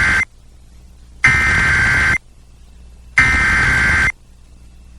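Emergency Alert System header (SAME data bursts) sounding as harsh, buzzing warbles. The tail of one burst is followed by two more, each about a second long and about a second apart. The header is the coded start of a National Weather Service severe thunderstorm warning, sent ahead of the voice message.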